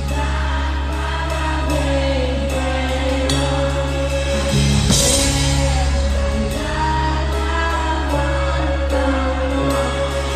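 Live concert music played loud through a stage sound system: a heavy, steady bass under singing with long held notes.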